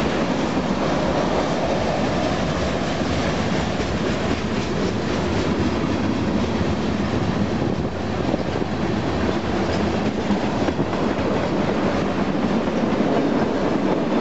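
Freight train's tank cars rolling past close by at speed: a steady, loud rush and rumble of steel wheels on rail, with occasional clacks of wheels passing over rail joints.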